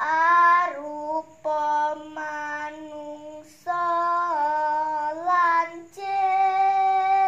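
A girl singing Javanese macapat unaccompanied, in long held, melismatic notes that step between pitches. There are three short breaks for breath, and the phrase ends on a long held note near the end.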